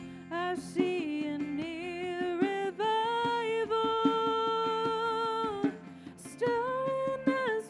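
Live worship band music: a slow, wordless melody line of long held notes that glide from pitch to pitch, over sustained chords and a steady beat of light percussion hits.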